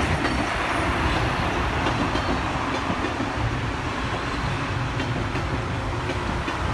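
Electric multiple-unit passenger train running through, a steady rumble of wheels on the rails.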